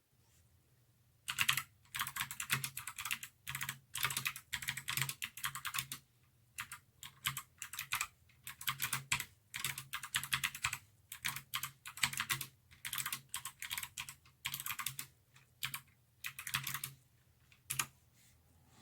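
Typing on a GMMK tenkeyless mechanical keyboard with clicky Kailh Speed Bronze switches: rapid bursts of sharp key clicks with short pauses between runs, starting about a second in and stopping shortly before the end.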